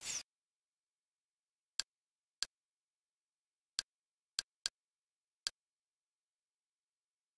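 Kodi interface sound effects during menu navigation: a short swish as a selection is made, then six short sharp clicks at uneven spacing as the cursor steps through the menu.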